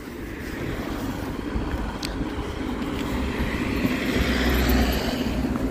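A road vehicle passing: steady tyre and engine noise that grows louder toward the end.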